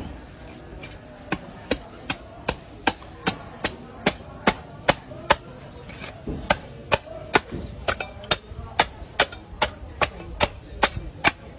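Heavy knife or cleaver chopping through a large stingray's body, with sharp, evenly spaced strokes about two and a half a second and a short break about halfway through.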